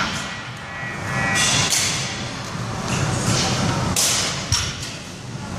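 Knocks and thuds from a loaded barbell's plates being handled on a rubber gym floor, the sharpest about four seconds in and again half a second later.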